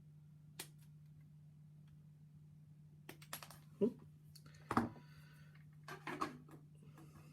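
Light clicks and taps of small plastic model-kit parts and tools handled on a desk, with a few louder knocks in the second half, over a steady low hum.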